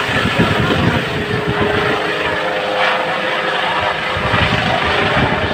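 Helicopter running, loud and steady, with a faint whine held through the middle.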